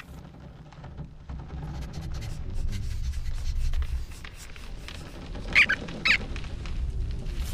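A cartoon squirrel squeaks twice in alarm, two short high cries near the end, over a low steady rumble.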